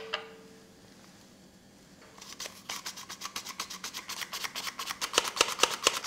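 Hand-held flour sifter being worked over a bowl: a fast, even run of crisp clicks, several a second, as its handle is squeezed over and over. The clicking starts about two seconds in.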